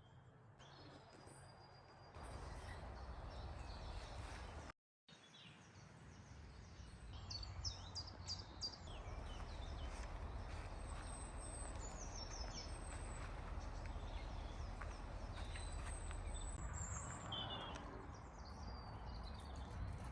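Several birds singing and chirping over a steady low rumble of outdoor background noise, with a brief cut to silence about five seconds in.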